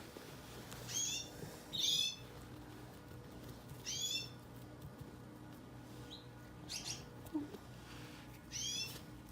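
Budgerigar chicks about three weeks old giving short, high-pitched raspy cheeps, five calls spread over several seconds, over a faint steady hum.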